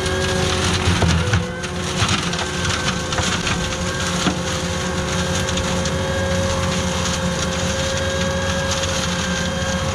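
Tractor-mounted flail hedge cutter chopping an overgrown hedge: the flail head smashing and splintering branches over the steady running of the Case Puma tractor, with a constant two-tone whine underneath and a few sharper knocks about a second in.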